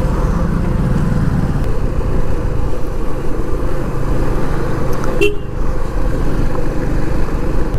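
Suzuki V-Strom SX 250's single-cylinder engine running steadily as the bike rolls along at low speed, with a brief sharp sound about five seconds in.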